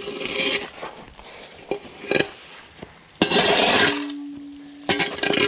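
Metal D-handle shovel clinking and scraping on an asphalt driveway, with a long loud scrape about three seconds in, followed by a steady low tone for about a second.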